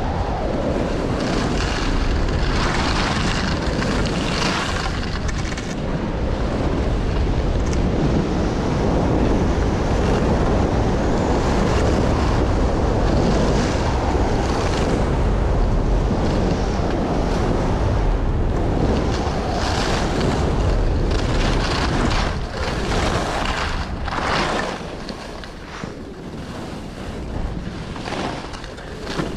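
Wind buffeting the microphone during a fast ski descent, with a rushing hiss of skis on snow that swells every second or two. The noise eases off a few seconds before the end.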